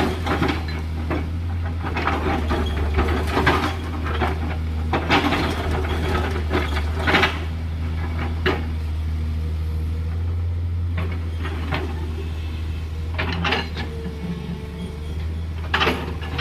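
Tracked hydraulic excavator's diesel engine running steadily under load, with irregular clatter, knocks and scraping of gravel and stones as the bucket cuts into a gravelly slope.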